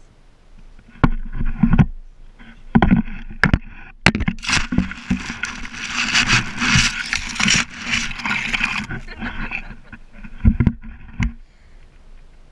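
Handling noise on a ground-level action camera: several sharp knocks and thumps, then a few seconds of grass rustling and scraping right against the microphone as the camera is jostled and tipped over, then two more thumps near the end.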